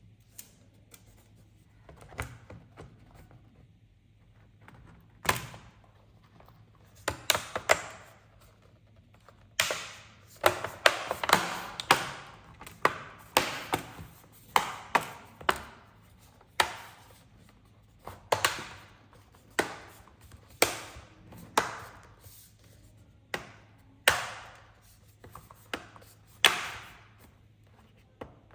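Sharp plastic clicks and knocks from hands working a laptop's case, sparse at first, then about one a second with some quick double and triple clicks.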